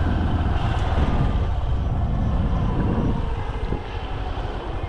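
A motor vehicle's engine running, with wind on the microphone. It eases off about three seconds in, leaving a regular low pulsing.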